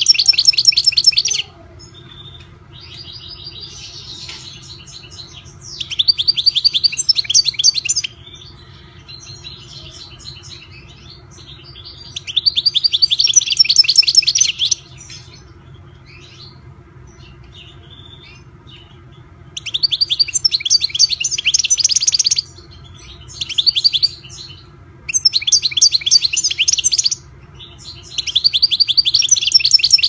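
European goldfinch singing: about eight bursts of rapid twittering song, each a second or three long, with short pauses between, over a faint steady hum.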